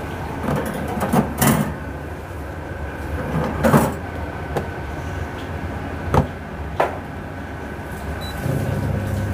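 Plastic knocks and clunks as parts of a countertop dishwasher are handled and its lid is lowered shut. Near the end a short beep sounds from its control panel, and the dishwasher starts up with a low steady hum.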